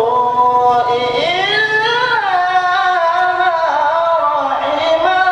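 A young man reciting the Qur'an in the melodic tilawah style, holding one long unbroken phrase: the pitch glides up about a second in, then falls back through quick ornamental turns.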